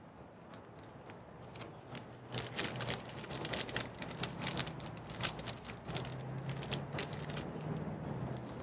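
Paper packaging rustling and crinkling as it is handled, a quick run of crackles that thickens about two seconds in and stops shortly before the end. A low steady hum comes in about six seconds in.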